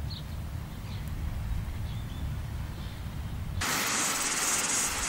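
Wind rumbling on the microphone at a beach, with a few faint high chirps. About three and a half seconds in it cuts abruptly to a steady high hiss of outdoor ambience, pulsing regularly, over a shore where small waves are breaking.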